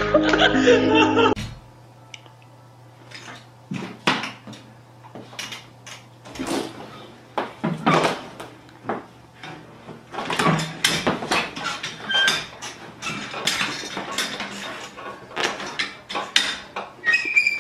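A young tiger mauling a padded office chair on a tiled floor: irregular knocks, clatters and scrapes as the chair and its metal base are shoved about. The clatter is sparse at first and grows busier about halfway through.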